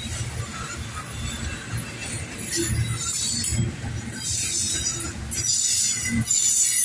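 Double-stack intermodal container train rolling past on steel wheels: a steady rumble with irregular metallic clicks and clanks. It grows louder in the last second or so.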